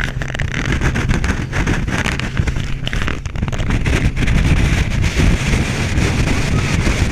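RIB boat under way at speed: wind buffeting the microphone over the steady noise of the engine and the water, getting a little louder about four seconds in.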